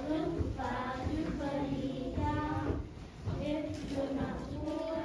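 Children singing, with notes held for up to about a second each and a short break in the middle.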